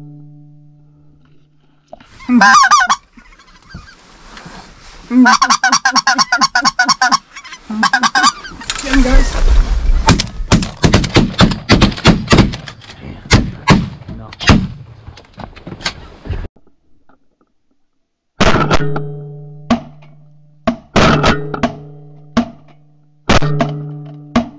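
Geese honking and a fast pulsed goose call, then a quick volley of shotgun fire into the flock. After a short gap, single shotgun blasts come one after another, each leaving a fading ringing tone.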